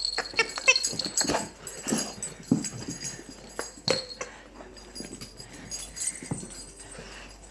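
A large dog making short vocal sounds while playing with new toys, among scattered clicks and knocks of the toys, busiest in the first few seconds.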